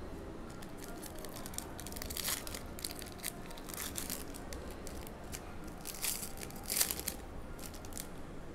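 A Donruss basketball trading-card hobby pack being torn open by hand, with irregular crinkling and tearing of its wrapper and the loudest rip a little before the end.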